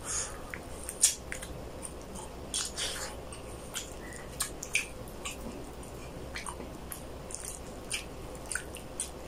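Close-up eating sounds of braised chicken hamonado: wet chewing and lip smacks with sticky squelches as fingers pull the meat apart, coming as scattered short clicks, the sharpest about a second in.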